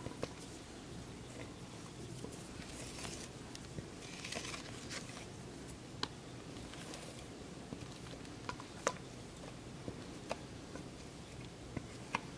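Faint scraping and squishing of a spatula working a soft, foamy ice cream mixture out of a mixing bowl into a springform tin, with scattered light clicks of the spatula tapping against the bowl and the tin's rim.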